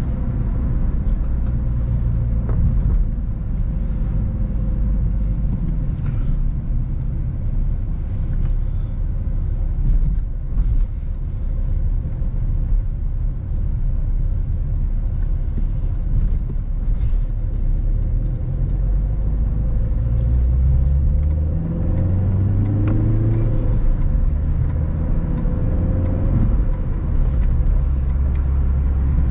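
Car being driven: steady low engine and road rumble, with scattered knocks and clicks. About twenty seconds in, the engine note rises as the car accelerates.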